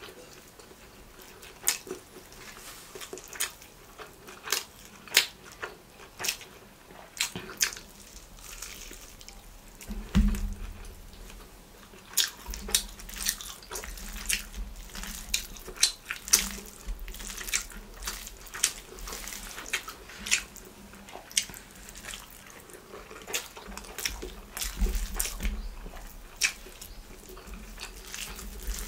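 Close-miked eating: wet chewing and lip smacks from a mouthful of parotta and spicy chicken, with the fingers tearing and squishing parotta soaked in salna on a banana leaf. A steady stream of sharp wet clicks, with low thuds joining about a third of the way in.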